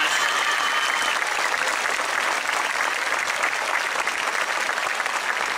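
Crowd applauding, a dense steady clapping.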